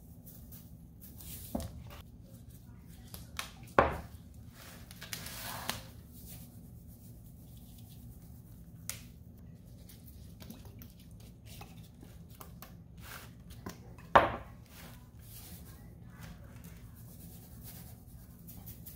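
Quiet handling while a tuna head is seasoned: a few sharp knocks of a plastic mirin bottle and a salt canister being handled on the counter, the loudest about four seconds in and again near fourteen seconds, with a short rustle around five seconds, over a faint steady low hum.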